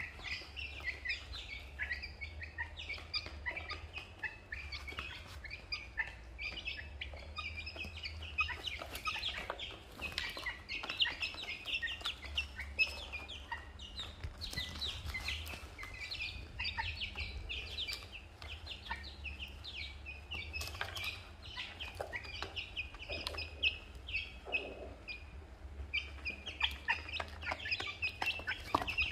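Young chicks and ducklings peeping constantly, a dense chorus of short, high peeps. Scattered sharp clicks from beaks pecking grain in the plastic feed tray run underneath.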